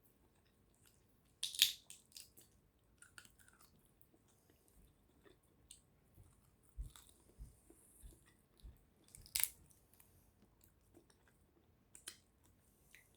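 Quiet eating at the table: a person chewing and biting food, with scattered sharp clicks, the loudest two about one and a half seconds in and near ten seconds.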